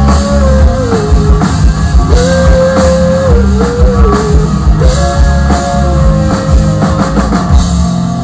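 Rock band playing live at a stage sound check: electric guitars over a driving drum kit, with a long sustained lead line that bends up and down in pitch.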